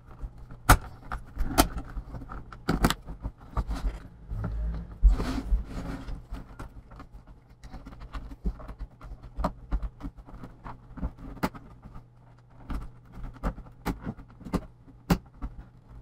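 Irregular sharp plastic clicks and snaps as the clips of an Acer Aspire Z3-600 all-in-one's plastic back cover are worked loose with a plastic pry tool, over a low steady hum.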